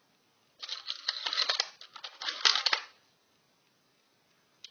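Small metal tools and loose screws clinking and rattling against each other as a toolbox is rummaged through, in two quick bursts of clatter in the first three seconds.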